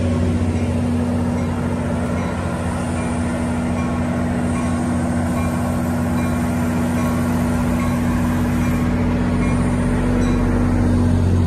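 EMD GP40PH-2B diesel locomotive standing at the head of its train with its engine running, a steady low hum that grows a little louder near the end.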